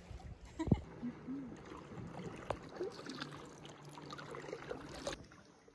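Faint water sounds: gentle splashing and dripping in calm sea water, with small scattered ticks and one soft thump a little under a second in.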